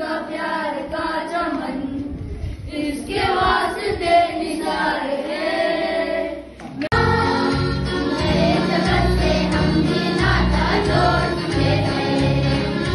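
A group of schoolchildren singing together in chorus. About seven seconds in the sound switches abruptly to a second group of children singing, with a fuller, heavier low end.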